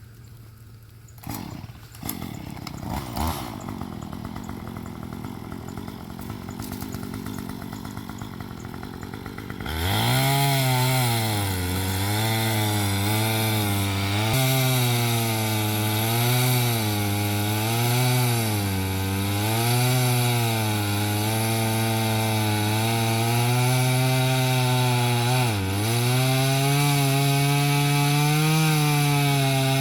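Chainsaw cutting through a big log. A few knocks come first, then about a third of the way in the saw runs up loud and holds, its pitch sagging and recovering as the chain loads in the wood, with two short dips.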